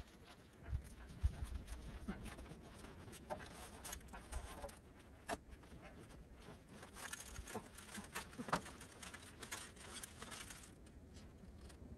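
Faint, irregular footsteps crunching on packed roof snow, with a few sharper knocks.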